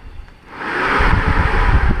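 A person snoring: after a short pause for breath, a rough, fluttering snore starts about half a second in and carries on.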